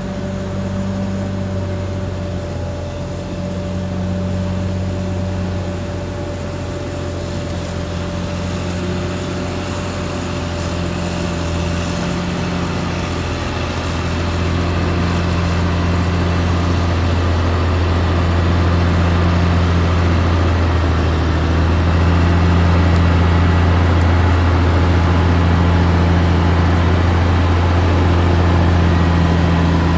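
Caterpillar D6R XL bulldozer's diesel engine running steadily, with a low throb that comes and goes every few seconds; it grows somewhat louder about two-thirds of the way through.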